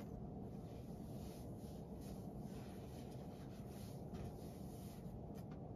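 Quiet room tone with a steady low hum and faint, soft rustling and scratching sounds scattered through it.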